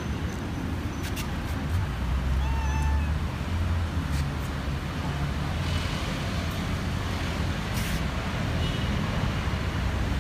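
A street cat meowing a few short times, one clear meow about two and a half seconds in and fainter ones later, over a steady low rumble of road traffic.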